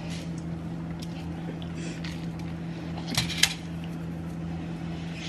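Steady electrical hum of a kitchen appliance, with two sharp knocks a moment apart a little past the middle.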